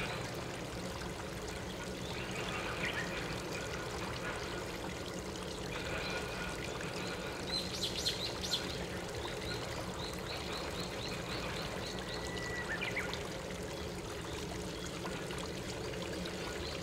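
Flowing stream water running steadily, with a few short, high bird calls over it, the loudest cluster about eight seconds in followed by a run of quick repeated notes.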